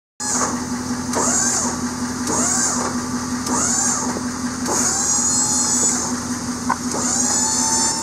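Electric-hydraulic pump of a pickup's dump-bed insert running as the loaded bed tilts up: a steady motor hum with a hiss and a rising-and-falling squeal that pulse about once a second.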